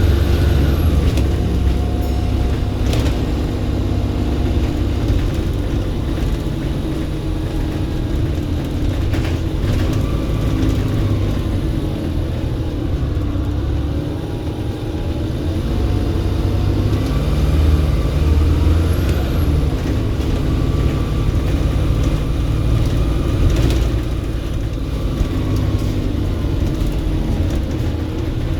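Volvo B7RLE single-deck bus's turbocharged six-cylinder diesel engine working hard, its note rising and falling several times, with a thin turbo whistle over the engine.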